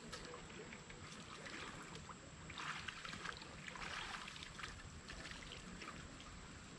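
Faint river water with splashing from a hooked salmon thrashing at the surface, in two brief bursts about two and a half and four seconds in.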